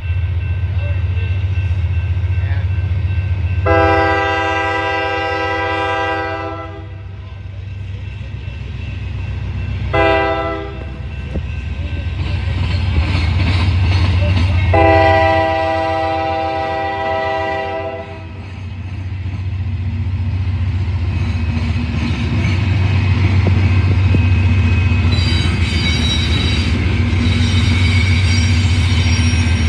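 CSX diesel freight locomotives passing close by, their engines running with a steady low rumble. The multi-chime air horn sounds a long blast, a short one, then another long blast, and near the end a high-pitched wheel squeal comes in.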